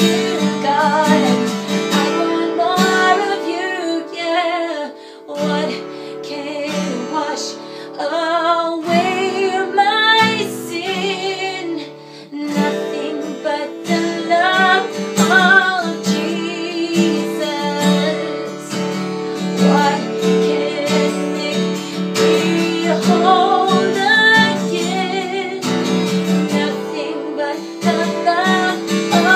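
A woman singing a worship song in phrases, accompanied by a strummed acoustic guitar.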